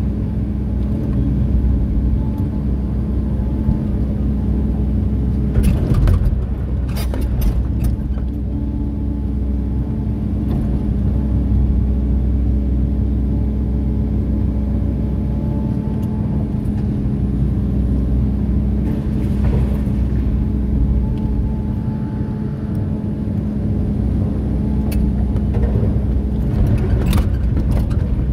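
LiuGong 915 excavator's diesel engine and hydraulics running steadily under load while the bucket dumps, swings and digs. Clusters of knocks from rock and steel strike about six to eight seconds in and again near the end.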